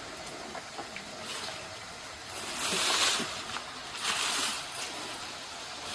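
Potato chips deep-frying in hot oil: a steady sizzle that swells louder twice around the middle, with a few faint clicks.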